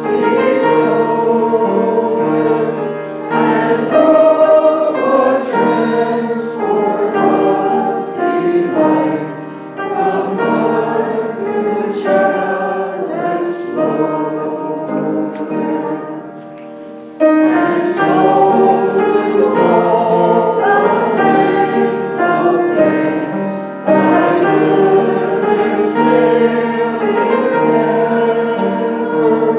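A group of voices singing a hymn in sustained notes, with a brief lull about sixteen seconds in before the next phrase starts.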